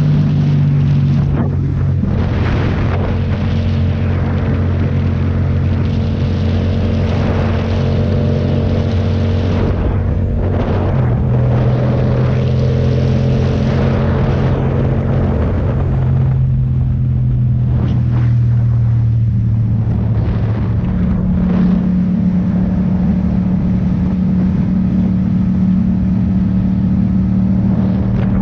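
Motorcycle engine running at highway cruising speed, with wind rushing over the microphone. The engine note changes pitch a few times, sitting higher in the last third.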